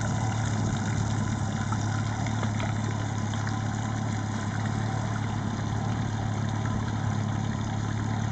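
Pontoon boat's outboard motor running steadily underway: a constant low hum that neither rises nor falls.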